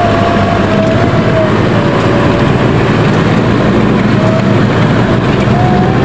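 Toyota Land Cruiser 4x4's engine running steadily as it works through deep mud on its winch line, with a whine over it that wavers in pitch and fades in and out.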